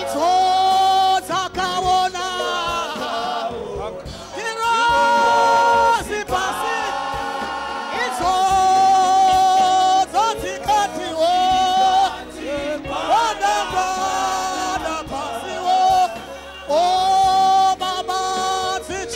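Gospel praise-team choir singing a Shona song together, in phrases of long held notes a couple of seconds each, with short dips between phrases.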